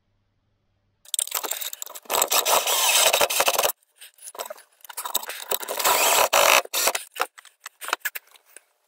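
Hands working on wiring: bundled cables rustling and scraping, with clicks and rattles of parts and tools. It starts about a second in and comes in several bursts with short pauses between them.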